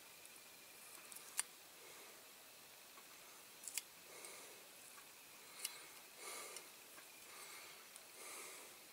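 Faint close handling noises: a few small sharp clicks and soft rustles as masking tape is picked off a painted diecast model car body.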